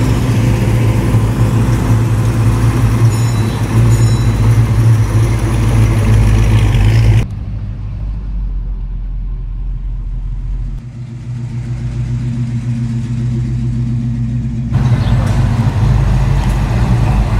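Classic Mopar V8 muscle-car engines running at low speed as the cars roll past, a loud, steady low rumble. The sound cuts abruptly about seven seconds in to a quieter engine that fades and builds again, then to a louder one again about fifteen seconds in.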